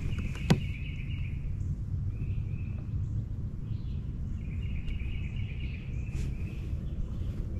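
Outdoor ambience: a steady low rumble of wind on the microphone, with an animal's high buzzy trill repeating several times. A single sharp click about half a second in.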